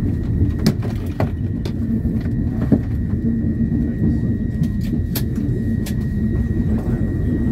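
Passenger train running along the track, heard from inside the carriage: a steady low rumble with a faint steady high tone and a few sharp clicks.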